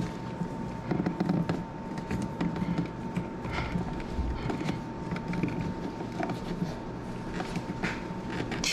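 Handling noise of a wired electrical outlet being worked back into its wall box: scattered small clicks, scrapes and creaks, over a faint steady whine.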